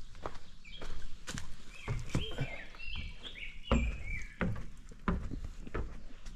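Footsteps on wooden stairs and a plank deck: irregular thuds and knocks, the heaviest about two seconds and nearly four seconds in. A bird sings a run of short high notes through the first two-thirds.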